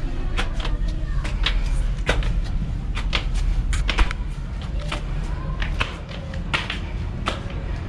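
Footsteps of people climbing inside the bell tower: a run of irregular knocks and clicks, two or three a second, over a steady low rumble.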